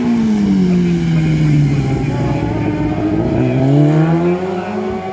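Classic racing superbike slowing for a tight hairpin, its engine note falling steadily as it brakes. It then rises again from about three seconds in as the bike accelerates out of the corner.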